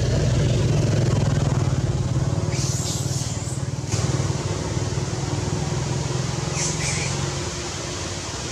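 A motor engine running steadily with a low hum, which drops away near the end. Two short high-pitched sounds come a few seconds in and again near the end.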